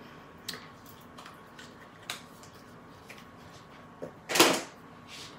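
Small clicks and taps of hands handling craft tools and paper on a craft mat, about one a second, then a short, louder scuff about four and a half seconds in.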